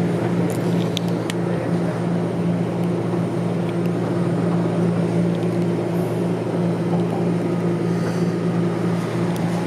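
Toronto Rocket subway train running along open track, heard from inside the car: a steady rumble of wheels and running gear under a constant low hum, with a few light clicks in the first second or so.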